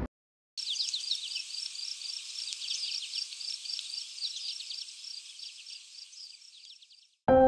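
High animal chirping: a steady run of short chirps, about four or five a second, with quick falling sweeps, fading down and cutting off near the end.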